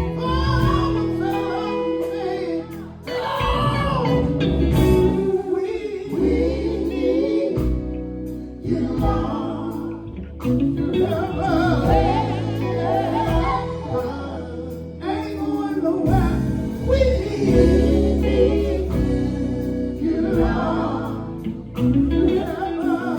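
Gospel song performed live: several voices singing over instrumental backing with a steady low beat.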